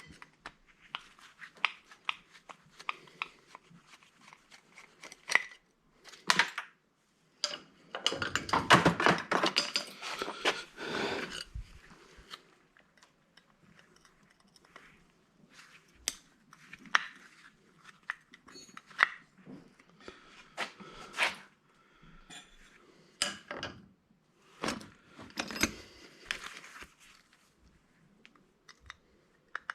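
Metal parts of an old electric angle grinder being handled and taken apart by hand: scattered clicks, clinks and knocks, with a louder stretch of rattling and scraping about eight seconds in that lasts three or four seconds.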